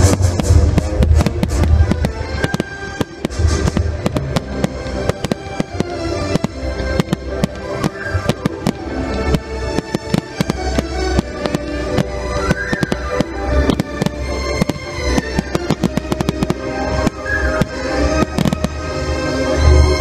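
Display fireworks launching and bursting: a dense run of pops, crackles and bangs, with a heavier boom near the end, over loud music.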